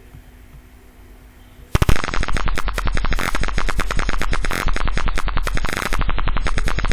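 Tinkercad-simulated piezo buzzer alarm that starts suddenly about two seconds in and keeps sounding as a harsh, rapid rattling buzz: the Arduino fire alarm triggered by simulated smoke at the gas sensor.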